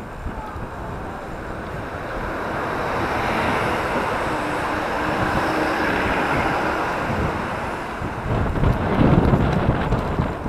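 Traffic noise that swells over a few seconds and fades again as a bus passes close alongside. In the last couple of seconds wind gusts buffet the microphone.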